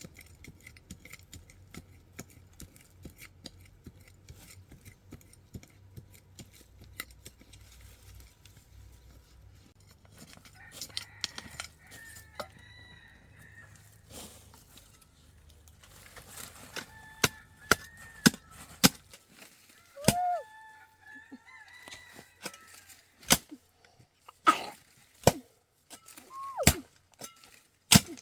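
Sharp chopping strikes of a digging tool, loudest and most frequent in the second half. Fowl are calling throughout, mostly short held calls, with a couple of downward-sliding cries.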